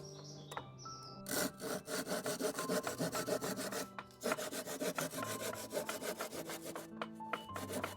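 A saw cutting through a wooden board in quick rasping strokes, in two bouts with a short break about four seconds in.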